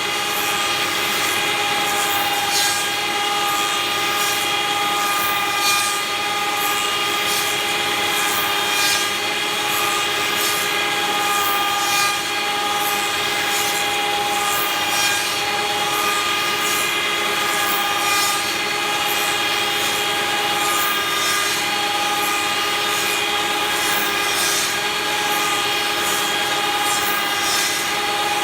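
Cosma SKS 7 copy milling and sanding machine running: a steady whine of several tones, with a regular rhythmic hiss repeating on top.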